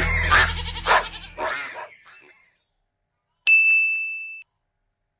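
Farm animal calls, a goat or sheep bleating among them, fading out within the first two seconds. About three and a half seconds in, a single bright chime rings and dies away over about a second.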